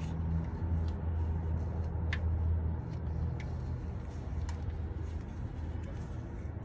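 A low, steady engine-like hum, as of a vehicle idling, with a few faint clicks.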